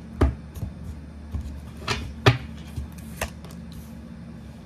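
Tarot deck and cards set down and laid out on a wooden table: a handful of sharp taps and clacks, the loudest a little past two seconds in.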